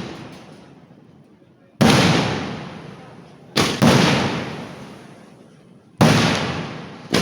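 Festival fireworks blasts: five sharp, loud bangs, two of them in quick succession near the middle, each followed by a long echo that fades over about two seconds.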